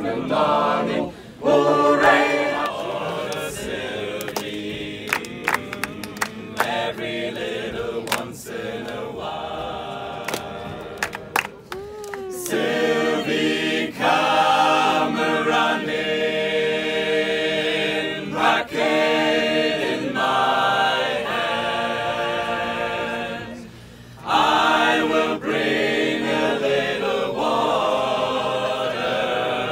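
A group of people singing together unaccompanied, breaking off briefly three times between phrases. A few sharp clicks sound in the first half.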